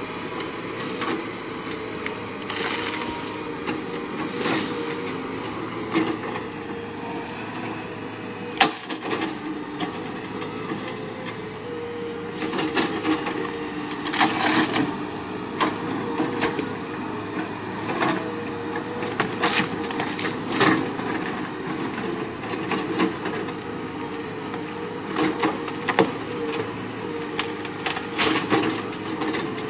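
CAT hydraulic excavator's diesel engine running steadily while its bucket breaks and crushes felled tree limbs and trunks. Repeated cracking and splintering of wood sounds over the drone, with the sharpest crack about nine seconds in and clusters of snapping later on.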